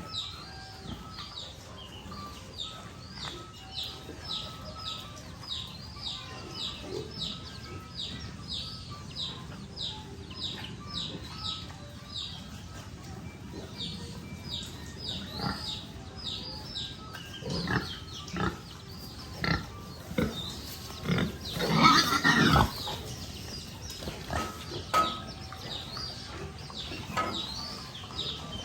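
Piglets grunting and squealing, with one loud squeal a little past the middle. A fast run of short high chirps goes on through the first half.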